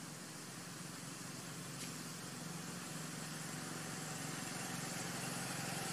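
A motor engine running steadily off-picture, its low hum growing gradually louder.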